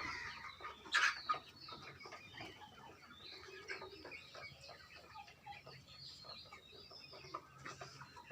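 A flock of broiler chickens clucking and chirping, with one louder call about a second in.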